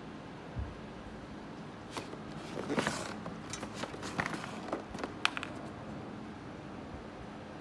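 Handling noise: a brief rustling scrape about three seconds in and a few light clicks and knocks, over a steady background hum.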